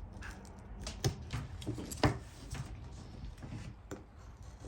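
Scattered clicks and knocks from handling a window screen frame while a last scrap of old screen is worked free, with two louder knocks about one and two seconds in.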